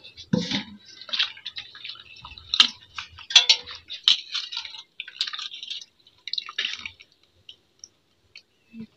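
Wild black mushrooms being washed by hand in a steel pot of water: irregular splashing and sloshing, with water dripping back as handfuls are lifted out. It thins to a few scattered drips near the end.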